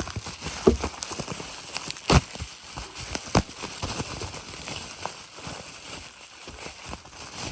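Packaging being handled and unwrapped: steady rustling and crinkling with a series of sharp knocks and clicks, the loudest about two seconds in.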